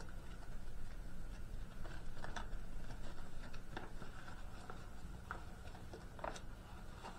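Faint rustling and scattered light clicks of small items in plastic and card packaging being handled and turned over.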